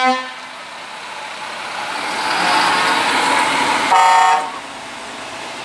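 Truck horns honking as heavy crane trucks drive past: a horn blast cuts off just after the start, then the noise of a passing truck swells, and a second, higher-pitched horn blast sounds for about half a second about four seconds in.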